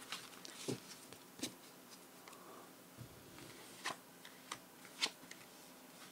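Tarot cards being handled and laid out, about six separate faint card snaps and taps a second or so apart.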